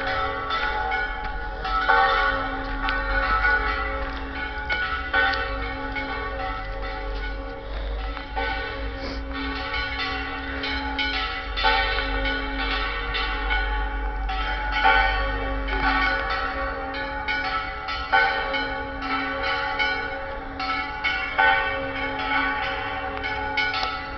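Church bells pealing: several bells struck over and over, the strokes overlapping and ringing on. A low rumble runs underneath for the first half or more.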